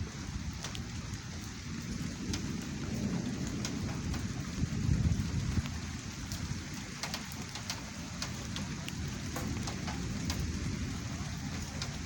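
Steady rain falling, with scattered drops ticking close by, and a low rumble of thunder that swells in the middle and fades again.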